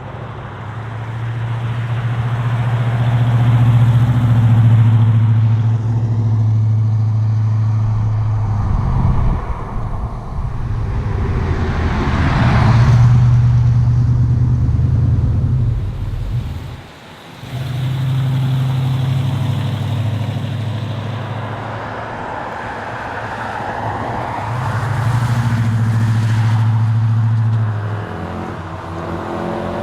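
Ford XB Falcon John Goss Special's V8 engine running hard under load, its note steady and then easing off briefly a few times: once about nine seconds in, sharply about seventeen seconds in, and again near the end, as the throttle lifts or the gears change.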